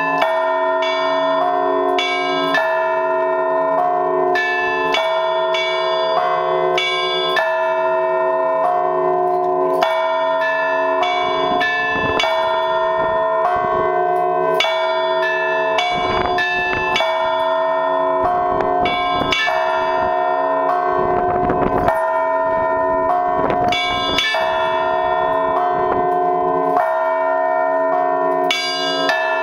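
Russian Orthodox church bells rung in a weekday peal: the smaller chiming bells struck in a quick, steady rhythm over the sustained ringing of the larger announcing bells.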